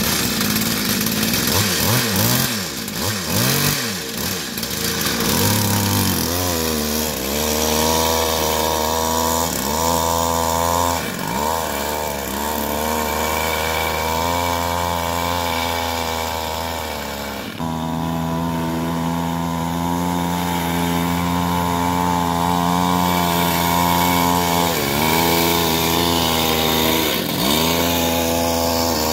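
Two-stroke chainsaw engine driving a homemade raft's outboard propeller. It revs up and down for the first few seconds, then runs steadily at high revs, its pitch dipping briefly a few times.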